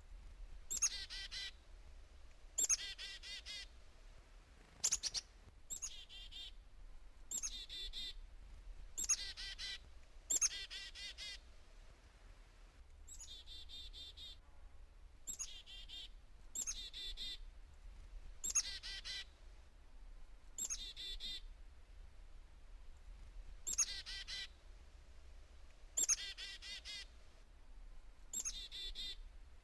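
Black-capped chickadees giving chick-a-dee calls over and over, about one every one to two seconds: each a sharp high note followed by a string of buzzy dee notes.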